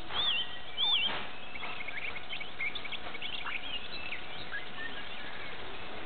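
Small wild birds singing: a wavy warbling whistle repeated a few times in the first second, then a scatter of short high chirps that thins out about four seconds in, over a steady background hiss.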